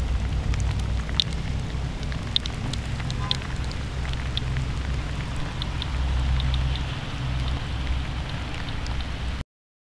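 Steady rain falling, with a low rumble underneath and scattered short high clicks, about one or two a second. The sound cuts off suddenly near the end.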